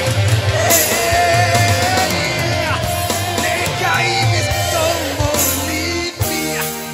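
Male singer singing live into a microphone in a husky, raspy voice, over Yamaha PSR-S arranger keyboard accompaniment with a steady beat and bass. Near the end the voice drops out and the keyboard plays on.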